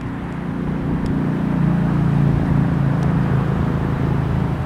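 Alco RS-1 diesel locomotive engine running as it shoves its train toward the crossing: a steady low drone that swells a little about a second and a half in.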